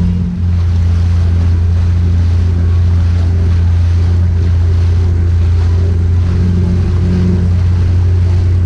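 Motorised watercraft engine running steadily under way, a loud constant low drone with rushing wind and water spray over it. The drone dips briefly just after the start.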